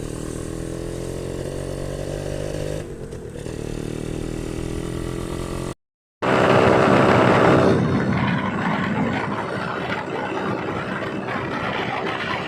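Motorcycle engine running under way, its pitch rising slowly, with a brief dip about three seconds in. After a sudden break, a louder, rougher stretch of engine and riding noise.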